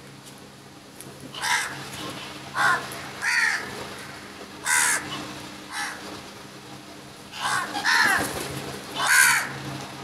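House crows cawing: about eight harsh, separate caws at uneven intervals, the loudest coming near the end.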